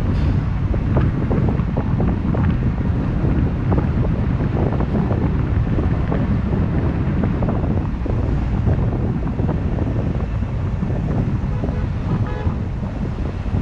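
Car driving along a city street: a steady low rumble of road and wind noise, with small knocks and rattles scattered through it.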